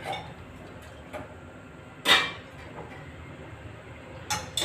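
A single sharp knock of something hard being put down or shut in a kitchen about two seconds in, ringing briefly, with a fainter click near the end.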